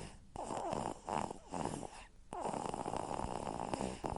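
A girl snoring in her sleep: a few long snores in a row, each followed by a short pause.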